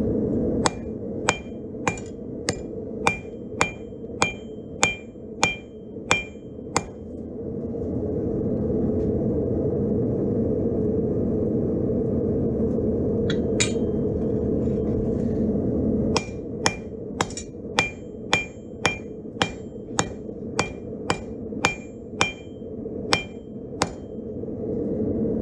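Blacksmith's hammer striking hot steel on the anvil, about two blows a second, each with a short metallic ring. One run of blows falls in the first seven seconds, a single blow comes near the middle, and a longer run follows in the second half. A steady low roar carries on underneath the whole time.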